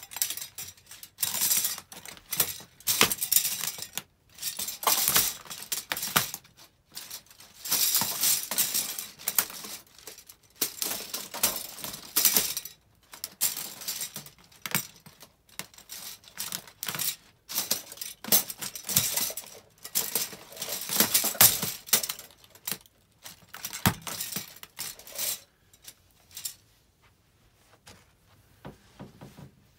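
White plastic spoons and forks being crushed under sock-clad feet: repeated bursts of clattering and crackling plastic as the pile is stepped on, stopping a few seconds before the end.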